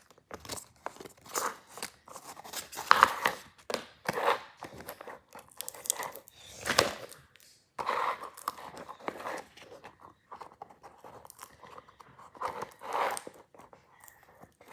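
Packaging being torn open and crinkled by hand, with irregular rips and rustles.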